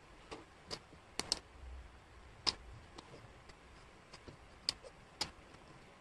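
Laser-cut wooden jigsaw puzzle pieces clicking and tapping on a tabletop as they are picked up, moved and fitted, about eight sharp clicks at irregular intervals.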